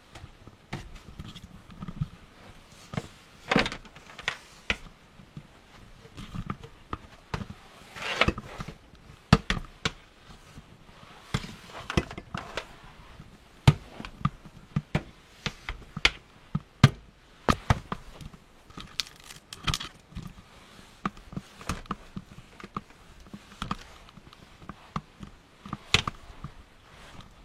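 Irregular clicks, taps and knocks of objects being handled, some louder than others, with a little scraping.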